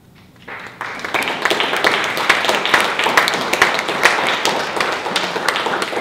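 Small audience applauding, starting about half a second in and quickly building to steady, dense clapping as the dancers bow.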